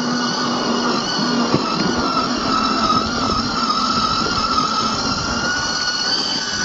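Whine of an RC scale crawler's 50-turn brushed electric motor and gearbox running at a steady speed, over the crackle of its tyres rolling on loose gravel.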